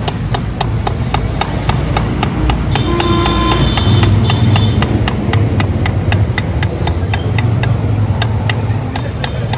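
Rapid, even mechanical ticking, about five ticks a second, over a steady low rumble.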